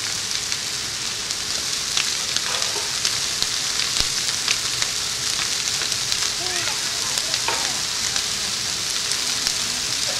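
Large bonfire of a piled wooden pyre burning hard: a steady hiss with frequent sharp crackles and pops from the burning wood.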